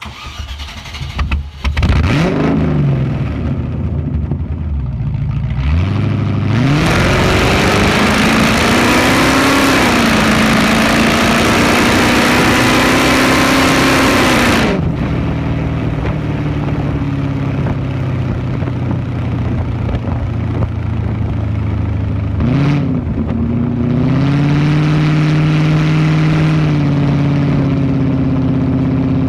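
Car exhaust through a 3-inch system with only a 10-inch hotdog resonator: the engine fires up and revs once. It then rises in pitch under hard acceleration and holds a loud, high note for about eight seconds before the throttle closes suddenly. After that it drones steadily at lower revs, with a short blip and a second climb near the end.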